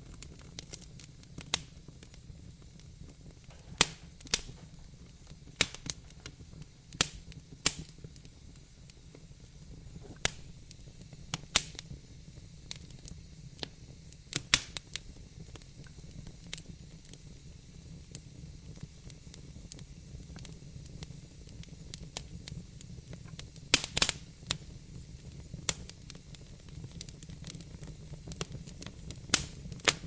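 Wood fire crackling in a fireplace: irregular sharp pops and snaps over a low steady rumble and faint hiss, with a quick run of pops about three-quarters of the way through.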